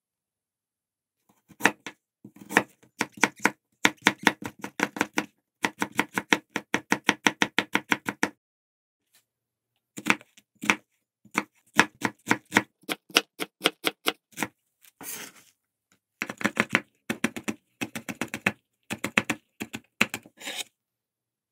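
Kitchen knife chopping vegetables on a cutting board in quick, even runs of about six strokes a second, stopping and starting several times.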